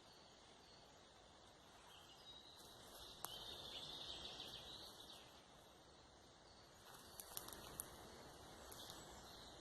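Faint woodland ambience with quiet birdsong chirping for a couple of seconds, and a few soft clicks about seven seconds in.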